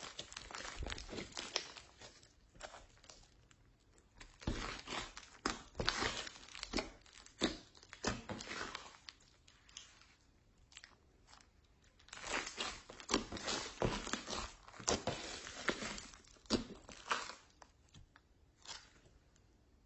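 Slime being mixed and squeezed by hand, giving bursts of sticky crackling with quiet pauses of a second or two between them.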